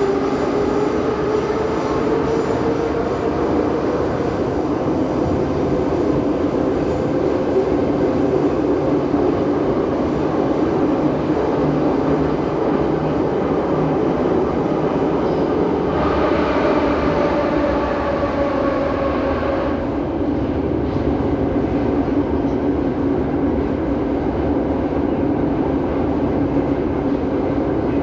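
81-717.5A/714.5A metro train running, heard from inside the passenger car: steady running noise with a traction-motor whine that rises slightly and then slowly falls in pitch. A higher whine joins for a few seconds about two-thirds of the way through.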